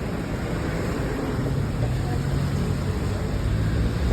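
Steady low rumble of a running engine under an even rushing noise, with a low hum coming up about a second and a half in.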